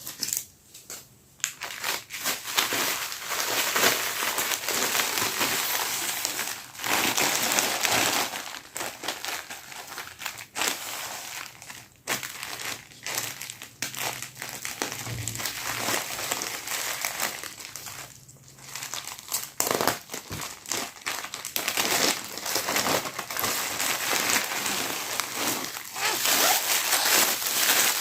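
Plastic parcel packaging crinkling and rustling as it is handled and opened, on and off with short pauses.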